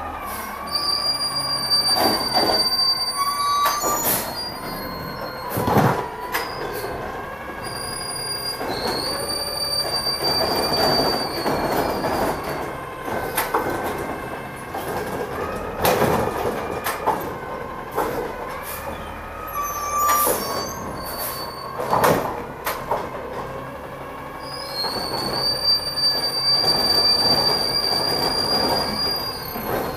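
Automated side-loader garbage truck working its hydraulic arm over the engine's running: a steady high-pitched whine comes and goes in three spells of a few seconds as the arm lifts and dumps wheeled carts. Loud bangs and knocks come as the carts are emptied into the hopper and set back down.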